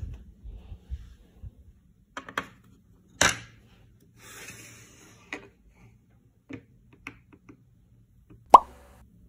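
Light clicks and knocks of wooden trays and dried air-dry clay charms being handled and set down on a desk, a scatter of separate taps with a louder knock near the end that rings briefly.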